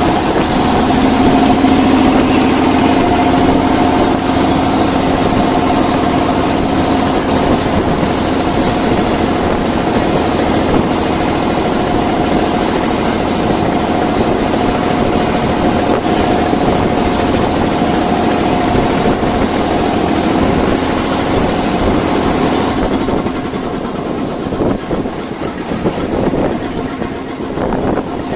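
Small wooden motorboat's engine running with a steady drone over a constant hiss. Near the end the drone weakens and the overall level drops as the boat eases off near the larger vessel.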